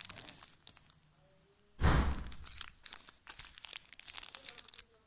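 Gold foil and paper wrapper of a small white chocolate bar crinkling and tearing as it is unwrapped by hand, with fine crackles throughout and one loud thump about two seconds in.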